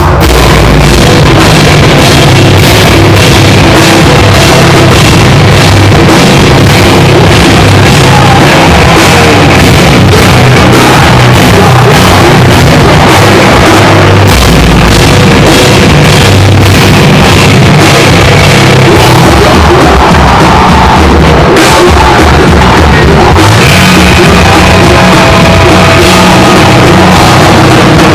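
A live rock band playing very loud, with electric guitar and a drum kit keeping a steady beat.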